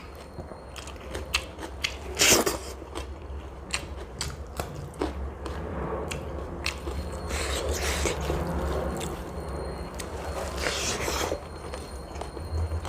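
A person eating close to the microphone: chewing with many small mouth clicks, and a loud crunchy bite about two seconds in, over a steady low hum.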